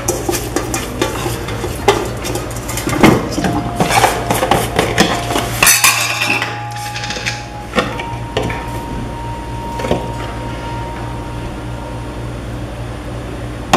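Fingers mixing grated coconut and curry leaves in a stainless steel pan, scraping and rattling against the metal. The scraping is dense for the first six seconds or so, then sparser and quieter. A steady low hum runs underneath.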